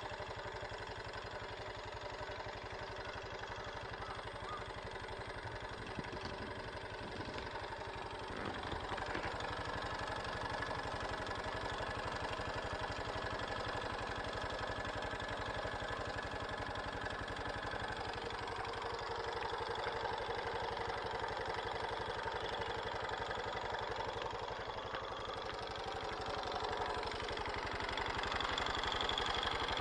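Honda Super Cub JA07's 110 cc air-cooled single-cylinder four-stroke engine idling with a clattering, rattling noise it did not use to make; the owner suspects a screw or part has come loose inside the engine. It runs a little louder from about nine seconds in and again near the end.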